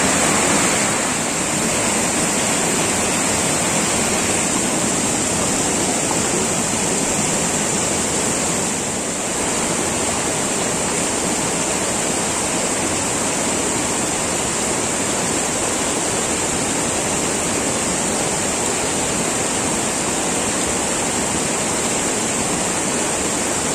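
Shallow mountain river rushing steadily over boulders and small cascades.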